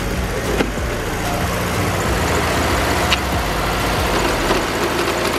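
Dune buggy engine idling steadily.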